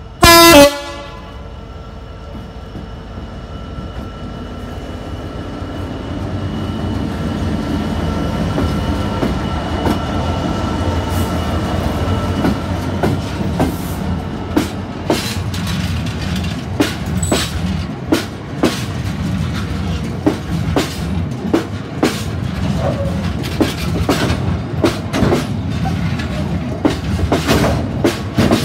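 A Freightliner Class 66 diesel locomotive gives one short, very loud horn blast about half a second in. Its EMD two-stroke V12 engine then grows louder as it passes, and the wagons' wheels follow, clacking rhythmically over the rail joints.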